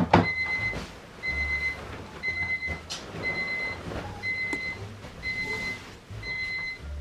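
Electronic alarm clock beeping, a short high beep about once a second, with a few sharp knocks and thumps of handling mixed in.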